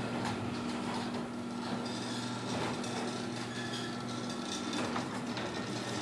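Chamberlain Whisper Drive belt-drive garage door opener running as it opens the door: a steady motor hum with a mechanical rattle.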